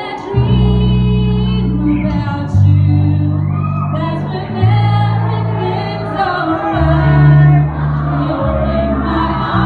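Live band playing with a female lead singer on microphone, backed by electric guitars and drums. Low sustained bass notes change every second or two under the sung melody.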